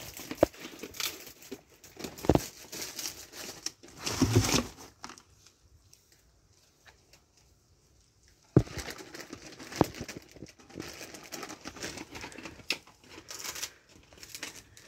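A husky tearing at and crumpling the paper wrapping of a pig-ear chew, in scattered rustles and clicks, with a few seconds' pause in the middle.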